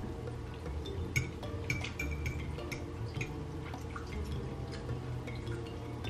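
Wet open-mouthed chewing: many small smacking and clicking mouth sounds, with a few light clinks of cutlery on plates.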